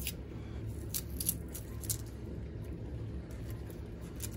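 A steady low hum with a handful of short, light clicks and taps scattered through it.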